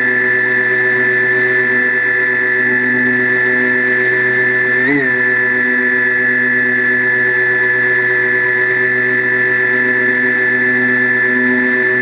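Brushless electric motor and propeller of the FPV aircraft carrying the camera, a loud steady whine at near-constant throttle, with a brief wobble in pitch about five seconds in.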